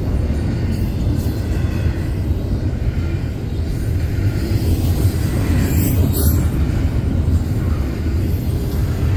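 Double-stack container train's well cars rolling past at speed: a loud, steady rumble of steel wheels on rail.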